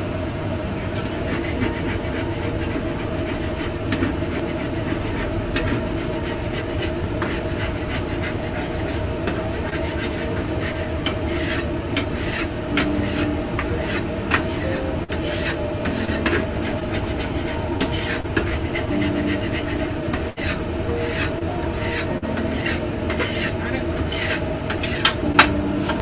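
Repeated rasping scrapes of a metal utensil on a cooktop, coming thicker and louder in the second half, over a steady fan drone from the kitchen exhaust hood.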